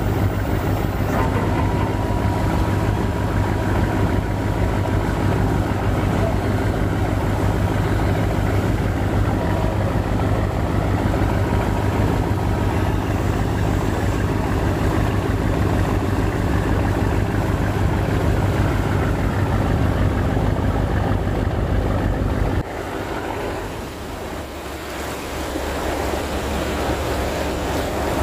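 Ship's engine droning steadily under the rush of churned water along the hull, with some wind on the microphone. Near the end the low drone cuts off abruptly, leaving the water noise.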